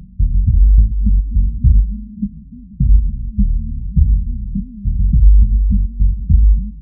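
Low-pass-filtered, bass-boosted music for a subwoofer test: deep bass notes and kick-like pulses swelling and falling every second or so, with nothing heard above the low bass.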